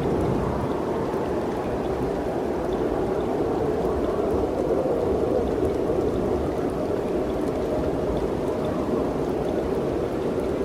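Mountain wind blowing steadily: a continuous low rushing with a deep rumble underneath.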